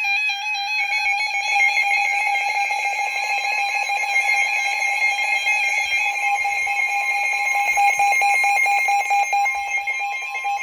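Emergency Alert System attention tone: a loud, steady electronic alarm tone, with a second, slightly higher tone joining about three seconds in. It signals the start of a severe thunderstorm warning broadcast.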